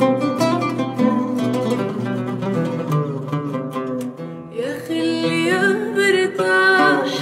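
Oud playing a plucked melodic passage, joined about four and a half seconds in by a woman's voice singing an Arabic song over it.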